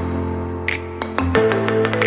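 Instrumental background music: held tones that shift to a new chord about a second and a half in, with short struck notes over them.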